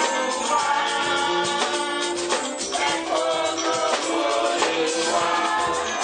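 A congregation singing a worship song together, accompanied by rattling shaker percussion.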